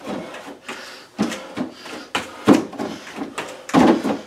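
Bare feet thudding on and off an aerobic step platform in quick, uneven steps, about two footfalls a second.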